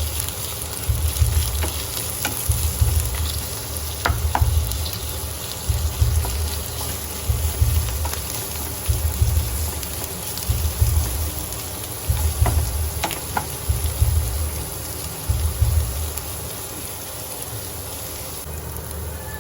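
Sliced onions frying in oil in a pan, sizzling steadily, being browned. They are stirred with low knocks about once a second, with a few sharp scrapes of the utensil, until the stirring stops a few seconds before the end.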